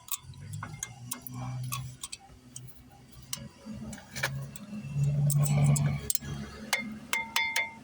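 Metal clicks and taps as brake pads and their clips are pressed into a Mercedes-Benz GLK's caliper bracket, over a low hum. A short high tone sounds near the end.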